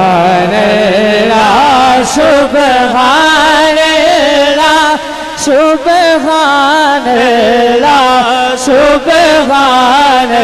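A man's voice singing a drawn-out, ornamented melodic line of devotional recitation through a microphone and loudspeakers. The pitch wavers and bends around long held notes, with brief pauses for breath.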